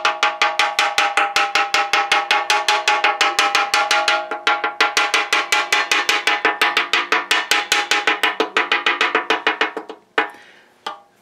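A steel wrench tapping rapidly against the wall of a rust-pitted steel propane tank, about six quick metallic strikes a second with a ringing tone, stopping about ten seconds in. The tapping is a check of the corroded shell near a rust pinhole, where the owner hears a dull, "funkish" tone along one band of the wall.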